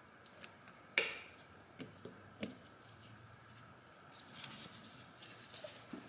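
Quiet handling noises while an oil catch can is fitted in an engine bay: a few short clicks and taps of parts knocking together, the loudest about a second in, then soft rustling.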